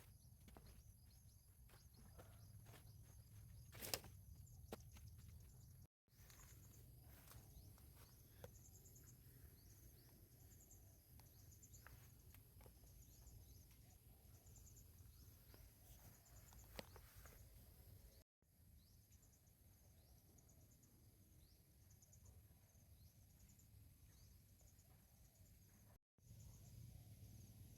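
Faint rural outdoor ambience with short, high chirps repeating about once a second from a bird or insect, a few light clicks, and three brief dropouts to silence.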